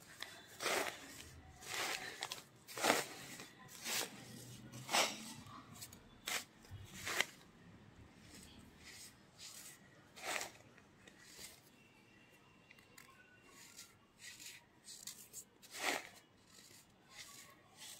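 Crunching and crinkling as a hand squeezes and crumbles kerosene-damp naphthalene powder in a plastic bag. Sharp crunches come about once a second for the first seven seconds or so, then only a few sparser ones.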